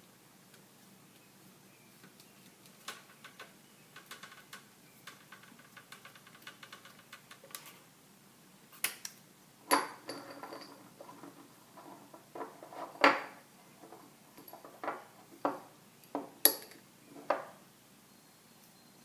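Small screwdriver and tiny screws clicking and tapping as screws are fitted back into a laptop's screen assembly: a run of light quick ticks, then a series of sharper separate clicks and knocks.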